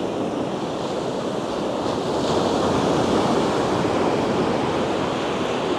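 Ocean surf washing on the beach as a steady rush, swelling a little in the middle and easing off near the end.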